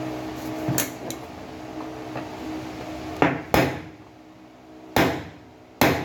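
Sharp metal-on-metal strikes as a screwdriver is driven against the housing of an electric fan motor's end bell around the bushing retainer. The strikes stake the loose retainer so the bushing stops shifting and making the rotor bind. There are two light taps about a second in and four louder strikes in the second half, each ringing briefly.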